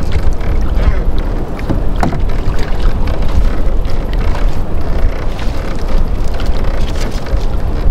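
Water sloshing and lapping against a small outrigger canoe, with a heavy, uneven low rumble of wind on the microphone and scattered light knocks.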